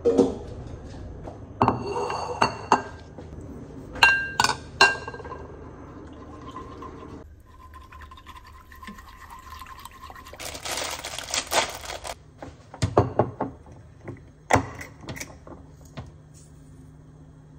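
Kitchen cooking sounds: pots and utensils clinking with short ringing strikes a couple of times in the first five seconds, liquid being poured for a second or two past the middle, then a few sharp clinks of a glass jar near the end.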